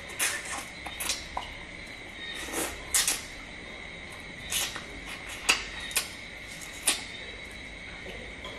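Cooked crab shell cracking and crunching as it is broken apart by hand and chewed: a string of irregular sharp crackles, about ten in all, over a steady faint high whine.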